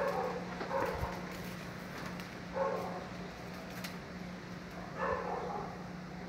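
A dog barking, about four short barks spaced irregularly, over a steady low hum.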